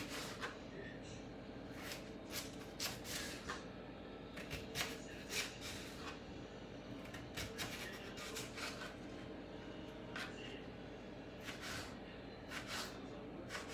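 Kitchen knife cutting raw peeled potatoes into thick fries on a plastic cutting board: irregular chops, each stroke ending in a short knock of the blade on the board, coming in loose runs, over a steady low hum.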